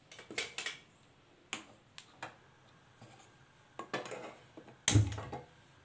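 Scattered sharp clicks and knocks of kitchen things being handled while a gas stove is switched on, with one louder thump just before the end.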